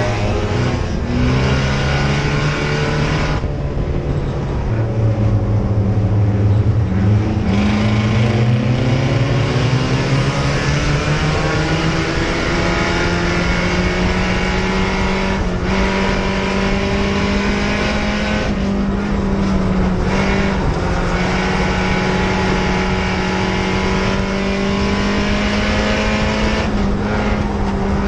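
Mini stock race car's four-cylinder engine, heard from inside the cockpit under racing load. The revs sit lower for the first several seconds, climb over a few seconds, then hold high and steady.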